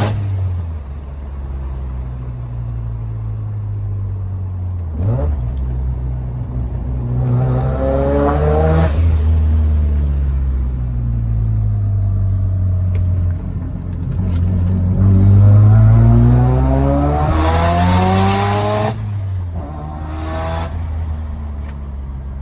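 Mazda RX-7 FD's turbocharged 13B rotary engine pulling hard under acceleration, its pitch climbing then dropping abruptly at each of several gear shifts. It is running with extra fuel added after reading lean on a wideband O2 sensor.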